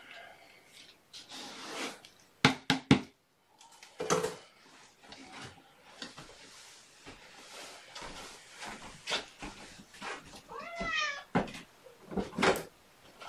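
A cat meows once near the end, among scattered clunks and knocks of things being handled, the loudest a quick run of three sharp knocks about two and a half seconds in.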